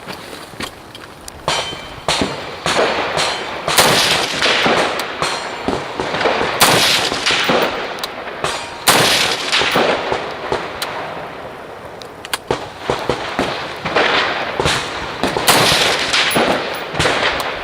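A string of rifle shots fired at irregular intervals in a practical rifle stage, each crack followed by a long echo.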